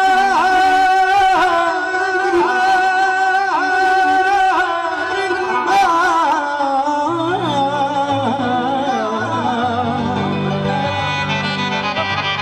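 Live Punjabi devotional song: a male singer holds long, drawn-out notes over electronic keyboard accompaniment. A keyboard bass line comes in about seven seconds in.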